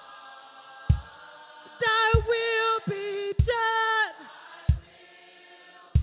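Live worship music: voices sing two short held phrases over a sustained background chord, with a deep kick-drum beat about every second and a quarter.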